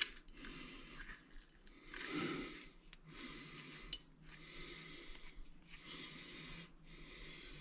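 A lemon half being juiced on a wooden citrus reamer: soft, wet scraping strokes about once a second, with one sharp click about four seconds in.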